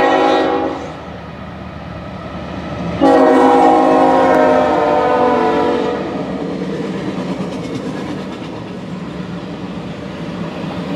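Union Pacific diesel freight locomotive's air horn sounding at a grade crossing: one blast that ends within the first second, then a longer blast about three seconds in that falls slightly in pitch as the locomotive passes. The train then rolls by with a steady rumble and clickety-clack of double-stack container cars.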